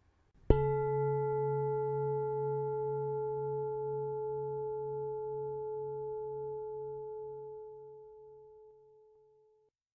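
A meditation bell struck once, ringing with one clear steady tone, higher overtones and a slowly pulsing low hum, fading away over about nine seconds.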